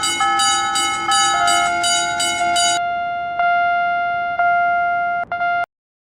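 Electronic bell-like chime tones, first a short run of changing notes, then three strikes about a second apart that each ring on, cutting off suddenly near the end.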